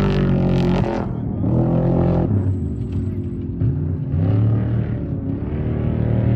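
Off-road race vehicle engines revving, the pitch rising and falling as the throttle comes on and off several times.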